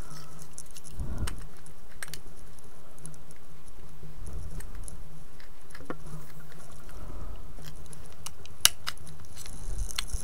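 Light scattered clicks and rattles of a plastic motion-sensor light housing and its circuit board being handled, with one sharper click near the end, over a steady low hum.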